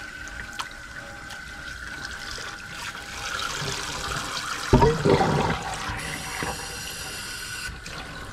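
Water spraying and splashing from a kitchen sink's hose sprayer into a stainless-steel sink, getting louder about three seconds in. A short louder burst comes about five seconds in.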